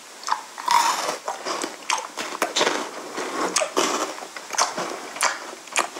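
Crunching and chewing of Maltesers, malted-milk chocolate balls soaked in cold milk, in a run of irregular crisp bites close to the microphone.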